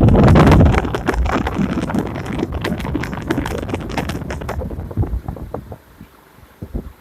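Noisy ceiling fan rattling and clicking: a dense, irregular clatter of knocks over a low rumble. It is loudest at first, then dies away after about five seconds, leaving a few scattered knocks.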